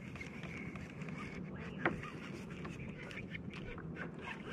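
Sea water slapping and sloshing against a kayak hull in a swell, with small clicks and knocks from fishing tackle being handled; one sharper knock comes about two seconds in.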